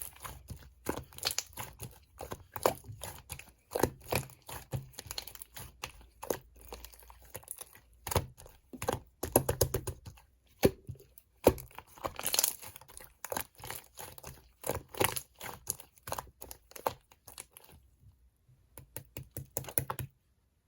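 Slime being squeezed and stretched by hand, giving dense, irregular crackling pops and snaps, with a few louder clusters; it stops abruptly just before the end.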